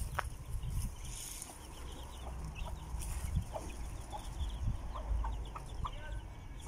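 A hen clucking now and then among her chicks, which keep up a stream of short, high peeps.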